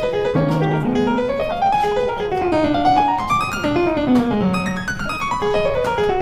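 Background piano music: quick runs of notes climbing and falling.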